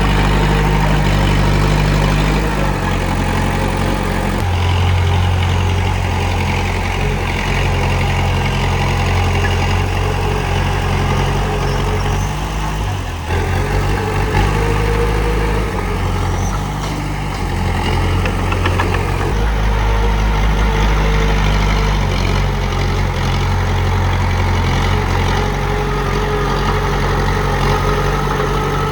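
Komatsu D31P bulldozer's diesel engine running continuously at work, a deep steady drone that swells and eases now and then.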